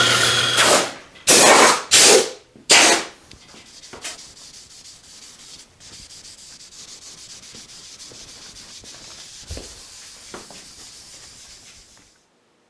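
1930s Craftsman bandsaw cutting through a two-by-four, the blade rasping loudly through the wood and then making three short loud cuts within the first three seconds. After that the saw runs on unloaded with a quieter steady hiss, which cuts off near the end.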